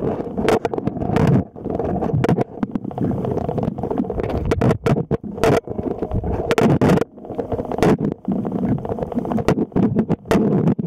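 Muffled underwater rumble as picked up by a camera in the water, with many short clicks and knocks scattered through it.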